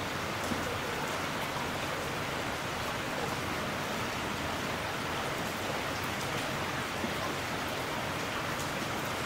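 Steady rain falling: an even hiss with a few faint drop ticks.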